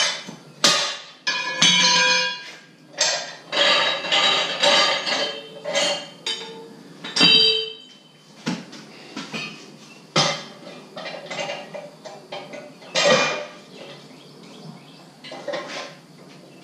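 Metal tools and parts clanking and clinking against each other, a dozen or so irregular knocks, many with a brief metallic ring.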